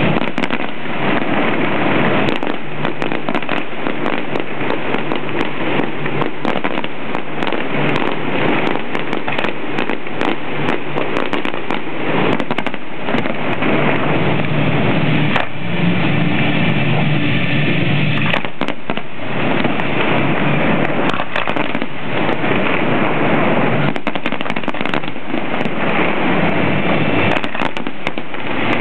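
Aerial fireworks shells bursting one after another, a constant run of bangs and crackle, with a short lull in the bursts around the middle.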